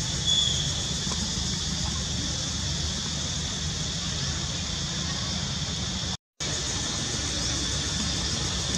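Steady outdoor background ambience: an even, high-pitched drone over a low rumble. A short high squeak comes about a third of a second in. The sound cuts out for a moment a little over six seconds in.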